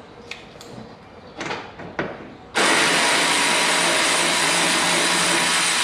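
A few light tool clicks, then a handheld power tool starts suddenly and runs steadily for about three seconds, driving out the 10mm bolt that holds the tail light, before fading out.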